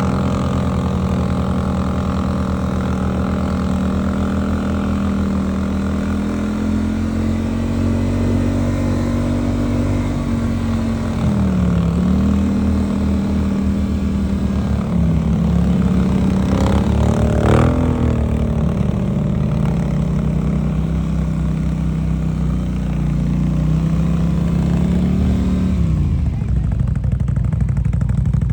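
Twin-cylinder 800 cc ATV engine running at a steady cruising pace through snow. Its pitch dips briefly twice, rises and falls in a quick rev about 17 seconds in, and drops as the throttle eases off near the end.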